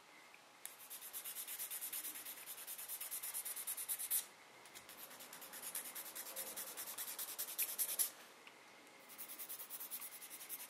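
Nail file rasping across a long flour-built fingernail extension in quick back-and-forth strokes, about five a second. It comes in three runs with short pauses between them.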